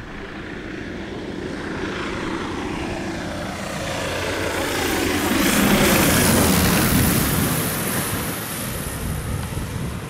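Cessna 172S Skyhawk's four-cylinder Lycoming engine and propeller passing low overhead. The engine grows louder as it approaches, is loudest about six seconds in as it goes directly over, then drops in pitch and fades as it moves away.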